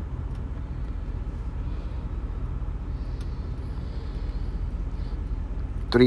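Gas furnace running with its burners lit: a steady low rumble. It is firing rich, the gas valve's outlet pressure at 4.3 inches of water column against a 3.5 maximum.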